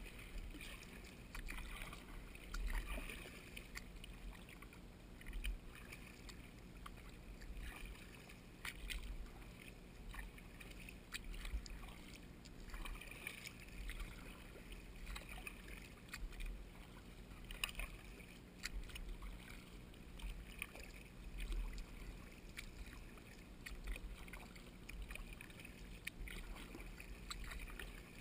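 Quiet kayak paddling: paddle blades dipping and splashing in the water, with scattered light clicks and drips over a low wind rumble on the microphone.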